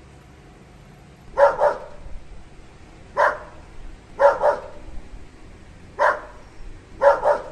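Dog barking in short groups, a double bark, then a single, repeating about every second and a half: about eight barks in all.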